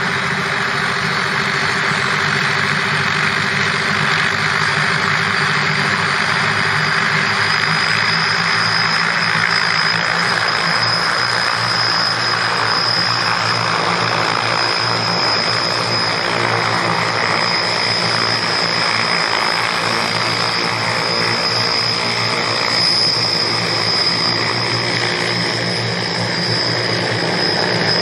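Propellers of an Avilus heavy-lift multirotor cargo drone whirring steadily as it lifts off and flies, with a steady high whine over the rotor noise.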